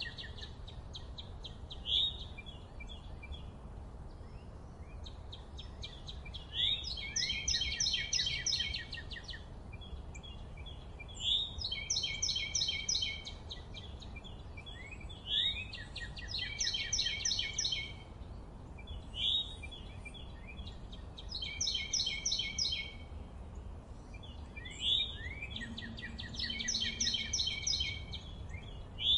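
A songbird singing the same phrase over and over, roughly every four to five seconds: a quick rising note followed by a fast trill of rapid notes, each song about two seconds long. A low steady rumble runs underneath.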